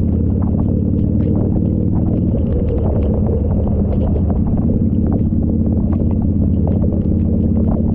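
Motorcycle engine running steadily on the move, heard close up, its note shifting slightly about two and a half seconds in.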